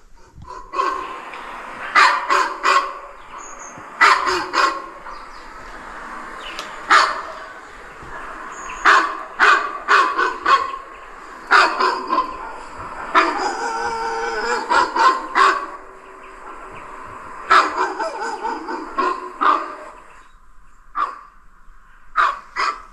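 Recorded dog barking and howling played back as a sound effect to scare off an animal moving overhead. Loud barks come in clusters, with a longer howl about halfway through.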